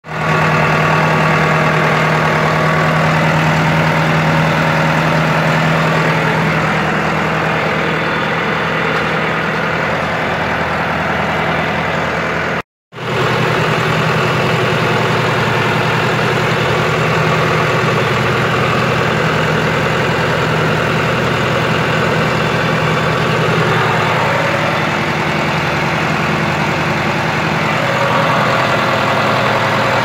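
Engine of a John Deere farm tractor with a front loader running steadily, heard close up from the driver's seat, with a brief gap in the sound partway through.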